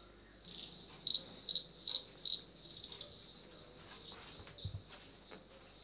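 Crickets chirping: short, high chirps repeating two or three times a second.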